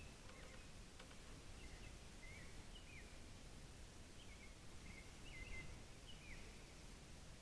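Faint bird chirps: short calls that slide up and down in pitch, repeating about once a second, over a low steady background noise.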